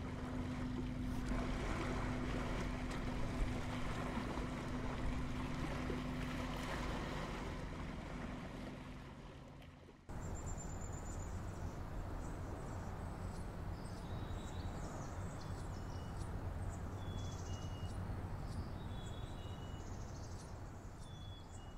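A steady low engine hum over wind and water noise, fading away after about ten seconds. Then a cut to quieter outdoor ambience: an even hiss with short, high chirps.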